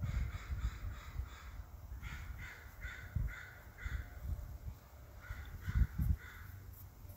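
Crows cawing in the background: a run of about six caws a couple of seconds in, then three more near the end. Low rumbling thumps on the microphone make the loudest moments.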